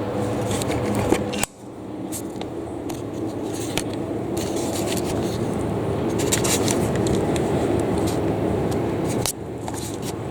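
Small metal clicks and scrapes of hand tools being worked at a chainsaw carburetor, over a steady background noise; the sound cuts abruptly twice.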